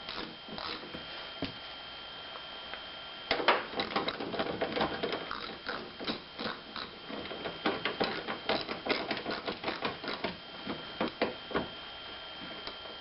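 Hand ratchet clicking in quick runs with metal clinks, as the hood bolts are run down and tightened. The clicking starts about three seconds in and stops shortly before the end.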